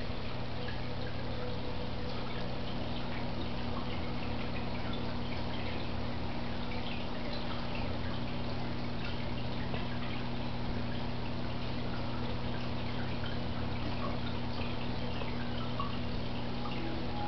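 Aquarium filter running: water trickling and dripping steadily, with a constant low hum underneath.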